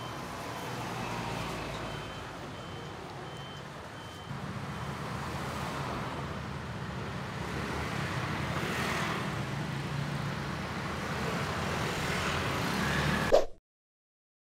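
Outdoor street noise with a motor vehicle running nearby, a steady low rumble. A high beep repeats about twice a second for the first four seconds. The sound cuts off suddenly near the end.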